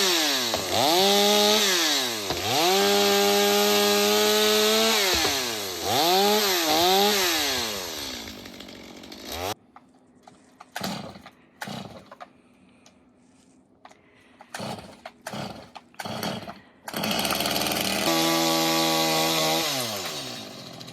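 Chainsaw engine revving hard in repeated bursts, the throttle dropping back between them, then falling away. A stretch of scattered knocks and clicks follows. Near the end the saw runs at speed again for a moment, then its revs drop.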